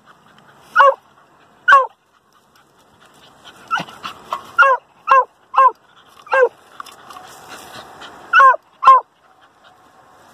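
Hunting dog barking at an armadillo holed up in its burrow while the dogs dig into the hole. About nine short, sharp barks come in irregular groups: two near the start, a quick run of five in the middle, and a pair near the end.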